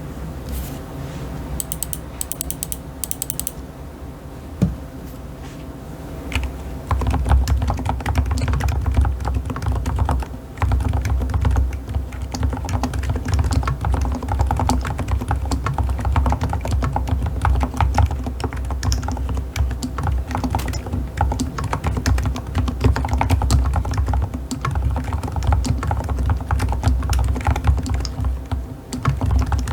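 Typing on a Keychron K8 Pro Max mechanical keyboard with K Pro silent White switches. A few scattered keystrokes come first, then continuous fast typing from about seven seconds in.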